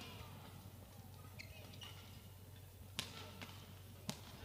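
Badminton rally: rackets striking a shuttlecock, two sharp hits about a second apart in the second half, with brief shoes squeaking on the court floor before them.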